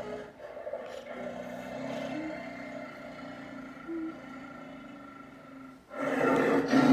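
Tiger roar sound effect, coming in suddenly and loudly near the end after a quieter stretch with a steady hum and a few short squeaks.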